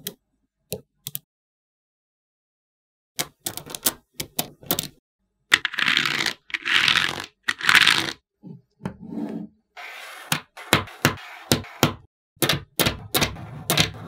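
Small magnetic balls clicking and snapping against each other as they are handled and pulled apart, a run of sharp separate clicks. Around the middle come a few longer scraping rustles as a sheet of card slides against the ball structure.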